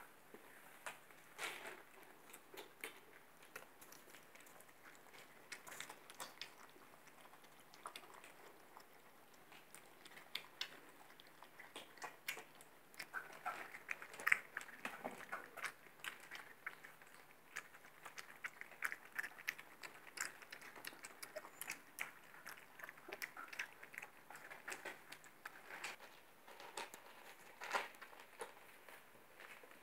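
Briard puppies chewing dry kibble: many small, irregular crunches and clicks, faint and scattered.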